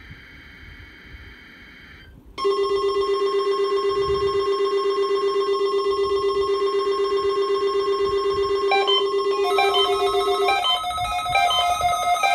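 Weather alert radio receivers sounding off for a NOAA Weather Radio weekly test. Faint warbling data tones of the test's coded header come first. About two seconds in, a receiver's alarm starts: a loud, steady, buzzy electronic tone. Near the end, a second alarm of quick beeps stepping in pitch takes over as the steady tone stops.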